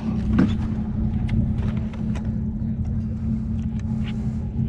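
Mercury Pro XS outboard motor idling with a steady low hum, with a few light clicks and knocks on top.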